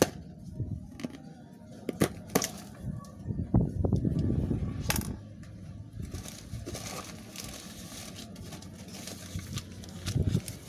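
Sharp taps and knocks from handling a plastic-wrapped, taped cardboard box, with a louder scraping rumble about four seconds in. From about six seconds in, a steady crinkling rustle as newspaper packing is pulled out of the opened box.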